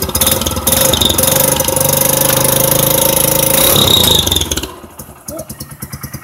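Honda CG Fan motorcycle's single-cylinder four-stroke engine through a Roncar ML sport exhaust, revved and held high for about four and a half seconds, then dropping back to a pulsing idle.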